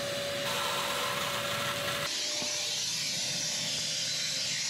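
Wet vacuum running steadily, its nozzle sucking standing water out of a boat's bilge. The pitch and hiss of the suction change about two seconds in.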